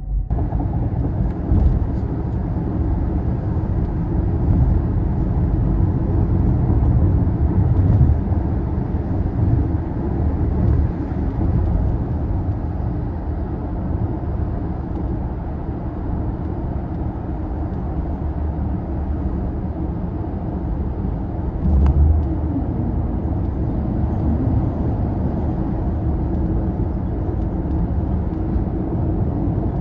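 Toyota Prius Prime driving, heard from inside the cabin: a steady low road and tyre rumble, with a few faint clicks scattered through it.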